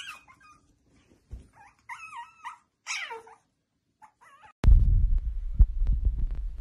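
A dog whining in a few short, wavering cries. About two-thirds of the way in, a loud low rumble with scattered knocks cuts in abruptly.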